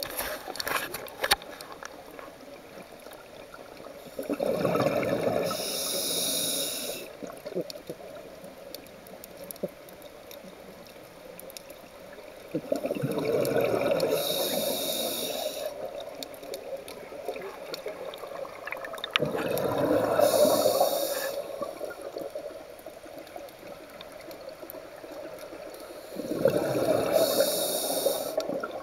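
A scuba diver breathing through a regulator underwater: four breaths about seven seconds apart, each a bubbling exhalation with a hiss of the regulator, over a steady wash of water noise.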